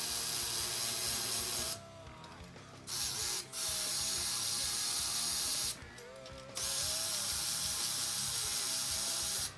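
Powered ratchet running in four runs of a couple of seconds each, starting and stopping abruptly, as it spins out the 13 mm alternator mounting bolts on a Ford 7.3 L diesel. Faint background music runs underneath.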